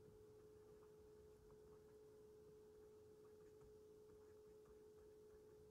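Near silence: faint room tone with a steady, faint hum at one pitch.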